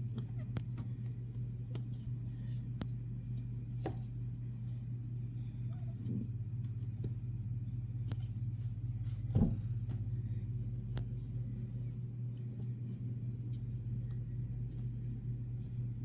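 Steady low mechanical hum, with a few faint ticks and one brief soft bump about nine seconds in.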